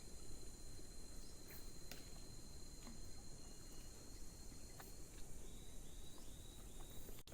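Steady high-pitched chorus of insects, with a thin steady whistle-like tone that stops about five seconds in, then four short chirps in quick succession near the end. A few faint clicks.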